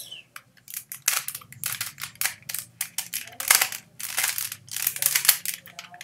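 3x3 Rubik's cube layers being turned quickly by hand: an irregular run of plastic clicks and clacks, several a second, with short pauses between turns.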